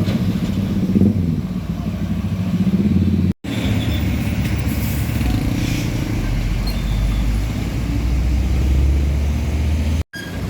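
Heavy truck engines running as traffic passes on the road, a low steady engine rumble broken twice by a split-second silence.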